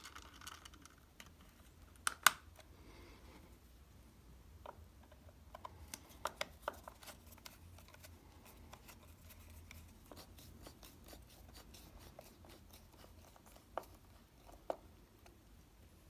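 Faint clicks and light scraping of a screwdriver turning the retaining screws of a brushed steel USB double socket faceplate, with one sharper click about two seconds in and runs of small ticks through the middle.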